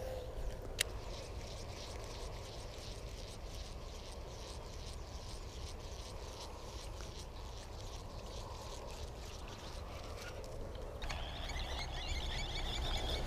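Baitcasting reel being cranked on a retrieve: a long run of fine, evenly repeated ticks, with a sharp click about a second in and a low wind rumble on the microphone. Near the end a run of short high chirps comes in.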